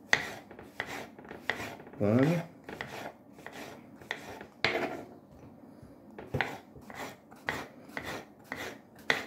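Kitchen knife slicing button mushrooms on a wooden cutting board: a regular series of short knife strokes down onto the board, about two or three a second, pausing for about a second past the middle.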